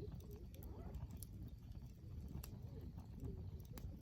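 Wood campfire burning with a low rumble and a few sharp crackling pops.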